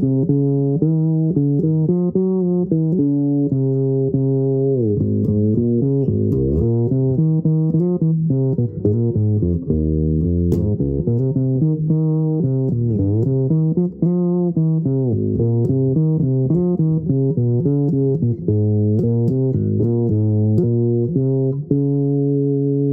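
Fretless electric bass played solo with the fingers: a continuous line of plucked notes, with a few notes sliding up or down in pitch.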